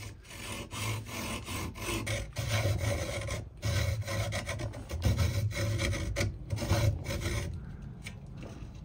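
Hand hacksaw cutting through a thin piece of wooden trim: a run of rasping back-and-forth strokes, about one or two a second, that stops near the end.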